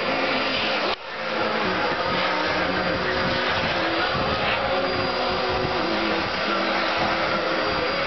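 Vacuum cleaner running steadily, its bare hose end drawn over a shedding dog's coat: a continuous rush of suction with a steady motor whine. The sound dips briefly about a second in, then comes back.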